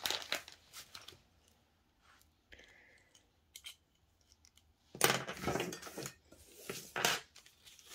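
Craft tools being handled on a paper-covered worktable: small taps and clicks, then two short, louder clatters about five and seven seconds in as metal scissors are picked up and moved aside.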